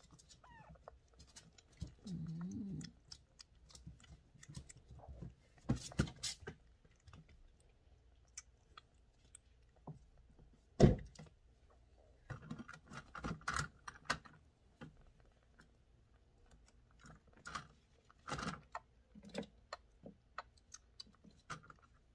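Kittens being handled and scrambling on a blanket and around a plastic pet carrier: scattered light clicks, scrapes and rustles, with one sharp knock about eleven seconds in.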